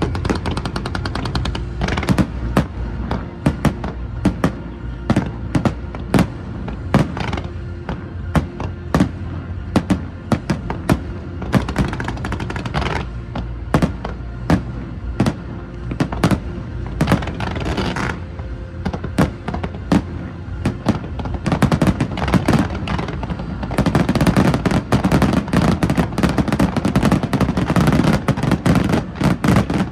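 Fireworks going off in rapid, irregular bangs, thickening into a dense crackling barrage for the last several seconds, with music playing underneath.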